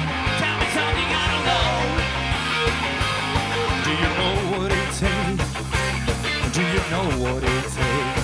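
Pop/rock band playing live, guitar to the fore over steady low notes and a regular beat.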